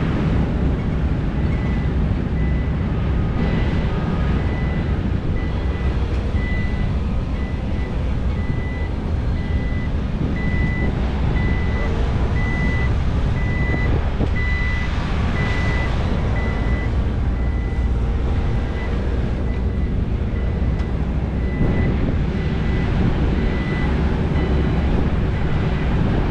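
A vehicle's reversing alarm beeping steadily, about twice a second, loudest around the middle, over a constant low rumble of heavy diesel machinery.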